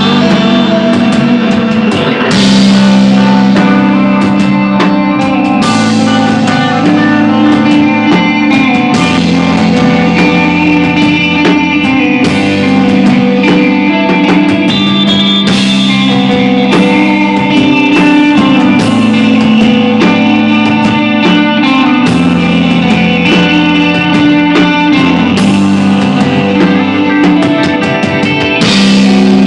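Instrumental rock band playing live: electric guitar with ringing, sustained notes over bass and drums, with a loud accent about every three seconds.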